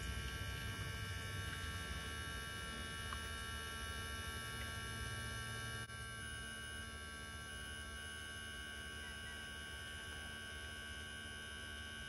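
Cera+ Pro portable espresso machine's pump running with a steady hum and a thin high whine as it pressurises water through the coffee puck during the shot. The level drops slightly about six seconds in.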